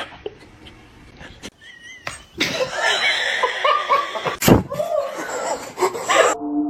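A person laughing, with one sharp slap about four and a half seconds in; steady music tones come in near the end.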